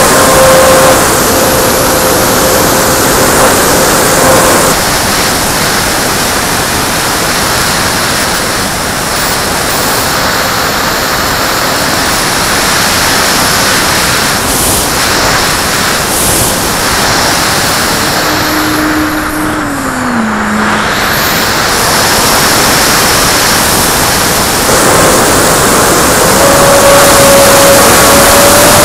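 Heavy wind rushing over an action camera's microphone on a Me 163 Komet radio-controlled model in flight. The steady whine of the model's electric motor and propeller is heard in the first few seconds, drops away through the middle, and returns in the last few seconds. A lower tone glides downward about two-thirds of the way through.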